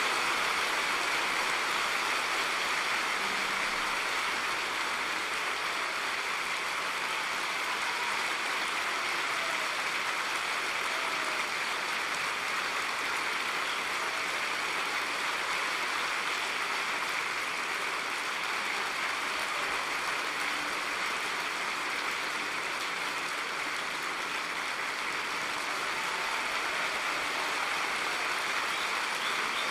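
Theatre audience applauding steadily, sustained clapping at the close of a ballet number.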